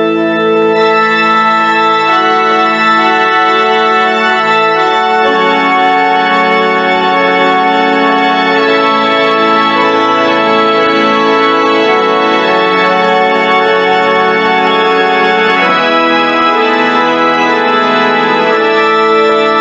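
Organ playing slow, held chords that change every few seconds in a simple repeating progression.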